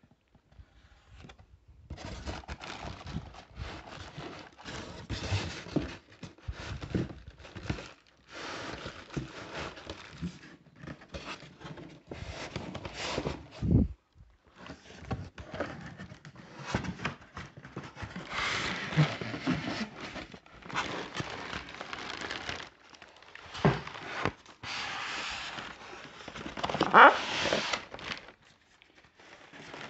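Clear plastic wrapping crinkling and rustling in irregular bursts, with scrapes and knocks against the cardboard box and packing, as a wrapped aluminium cylinder head is unpacked. It starts about two seconds in, and the loudest crinkle comes near the end.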